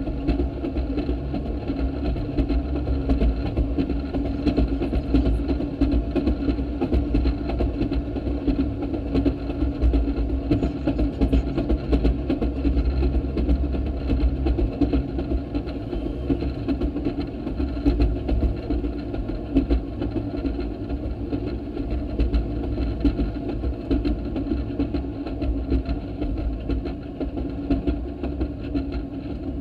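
Railroad speeder (track motor car) running along the rails, its small engine giving a steady drone with heavy low rumble and irregular clicks and rattles.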